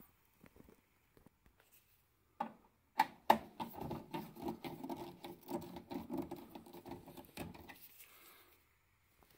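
Screwdriver turning a screw in the metal mounting bracket of a gas burner's control unit: two sharp clicks, then about four seconds of rapid scratchy clicking as the screw is worked, fading out near the end.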